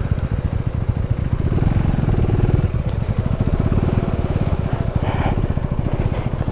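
KTM Duke 390's single-cylinder engine running steadily as the motorcycle is ridden, its firing pulses quick and even.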